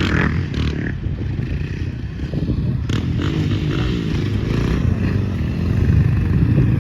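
Motorbike or ATV engine running, its pitch rising and falling as it is revved, growing louder near the end. A short sharp knock about three seconds in.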